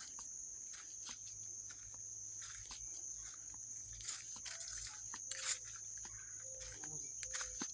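Crickets trilling steadily at a high pitch, with irregular soft footsteps or rustles over it and a few brief faint tones in the second half.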